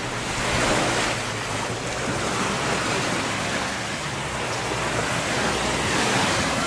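Gulf of Mexico surf washing onto the beach, a steady rush that swells slightly at times, with wind rumbling on the microphone.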